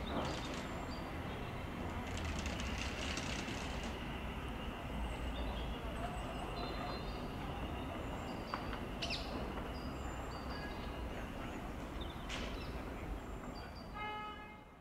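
Electric multiple-unit train at the station: a steady low rumble with a high whine running over it, and a couple of sharp clicks.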